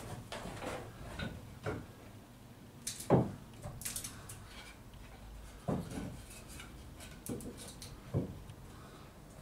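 Pieces of timber knocking and clattering as wooden blocks and an upright prop batten are handled and wedged down onto a fibreglass boat hull, a few separate knocks with the loudest about three seconds in.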